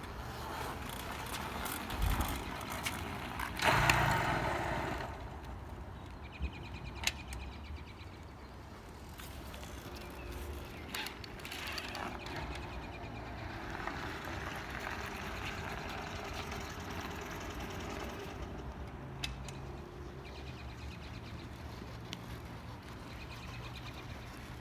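A 1983 Yamaha PW80 two-stroke mini dirtbike being pushed along to push-start it: tyres rolling and the bike rattling, loudest about four seconds in, with a few sharp clicks. The engine does not start.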